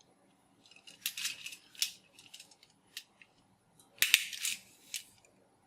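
Small plastic toys being handled: scattered clicks, rattles and rustles in short clusters, the loudest about four seconds in.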